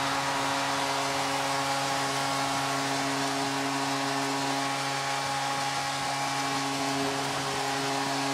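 Arena goal horn blaring steadily for a home-team goal, several held tones at once, over a cheering hockey crowd.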